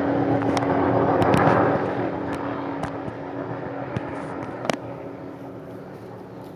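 McDonnell Douglas MD 500 helicopter flying away, its rotor and engine noise with a steady hum fading out gradually. A few short sharp clicks sound over it.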